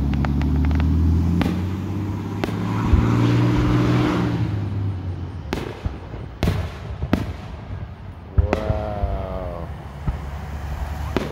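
Fireworks shells bursting overhead, with a run of sharp bangs through the middle. Under the first few seconds a vehicle's engine runs with a low steady drone, louder than the fireworks at that point.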